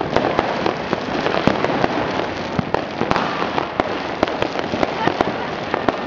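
Many fireworks and firecrackers going off at once: constant crackling with sharp bangs several times a second.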